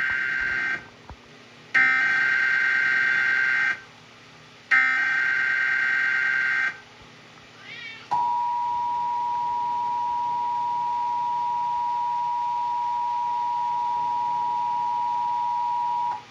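Emergency Alert System Required Monthly Test signal: the SAME header's data bursts of rapidly alternating tones, the end of one and then two more of about two seconds each with short gaps between. About eight seconds in, the steady two-tone attention signal starts and holds for about eight seconds before it cuts off.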